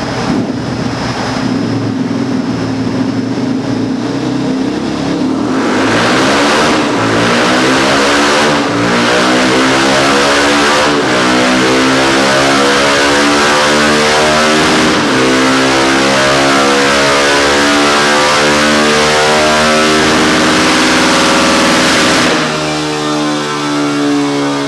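Yamaha XTZ 250 Lander's single-cylinder 250 cc engine running hard under load on a dynamometer. Its pitch climbs in a long pull broken by a few brief dips, then drops back near the end.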